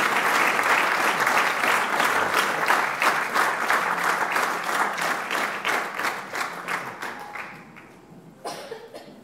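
Audience applauding, full and steady at first, then thinning out and dying away over the last few seconds.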